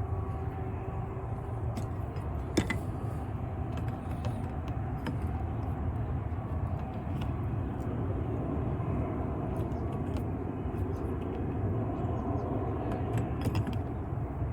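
Small scattered clicks and taps of a lock's mounting screws being tightened by hand, with one sharper click about two and a half seconds in, over a steady low rumble.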